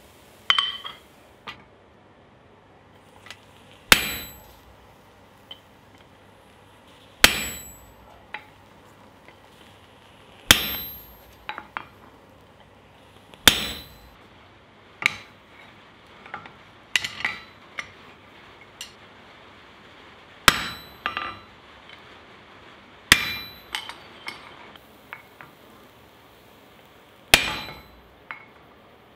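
Hammer blows on a handled top tool held on hot steel over an anvil: a heavy ringing strike about every three seconds, with lighter knocks in between.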